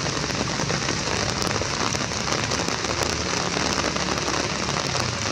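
Steady rain falling, an even hiss with a fine patter of drops.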